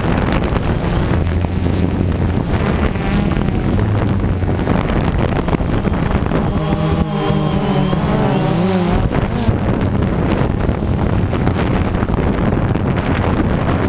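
Drone's electric motors and propellers running steadily, heard close up through the camera carried on it, with wind buffeting the microphone. The hum wavers up and down in pitch for a couple of seconds in the middle.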